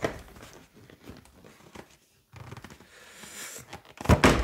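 Cardboard graphics-card box being handled: rustling and a scraping slide as the inner box moves in its sleeve, then a loud bang near the end as the box knocks down hard, the "smash" of the caption.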